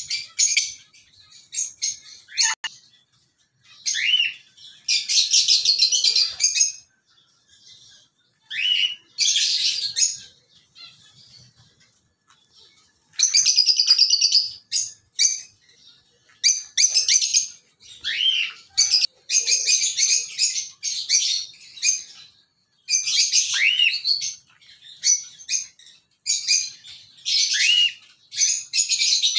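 Caged lovebirds chattering: bursts of rapid, high-pitched chirps a second or two long, with short sliding calls between them and brief pauses.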